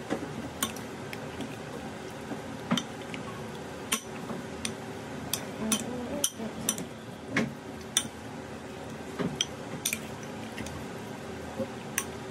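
A metal spoon is stirring raw chicken pieces coated in curry powder and seasoning in a bowl. It makes irregular sharp clinks and scrapes as the spoon knocks against the bowl.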